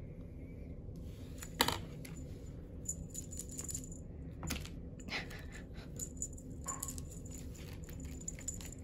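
Kittens playing with a feather toy on a hardwood floor: scattered light clicks, taps and rattling, with one sharper knock about one and a half seconds in, over a steady low hum.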